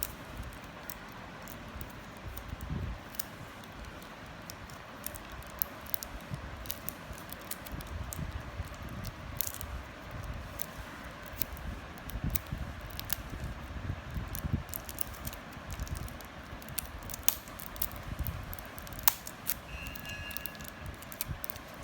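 Handling noise from unboxing earbuds: scattered small clicks and taps of plastic packaging and the earbuds being handled, over a low uneven rumble. Two brief faint tones sound near the end.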